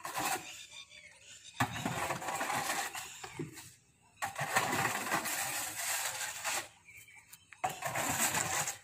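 Long-handled hoe scraping buffalo dung along a concrete floor: three long rasping strokes, each one to two seconds long, with short pauses between.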